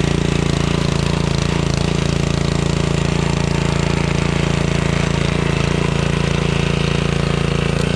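Small gas engine of a log splitter running steadily.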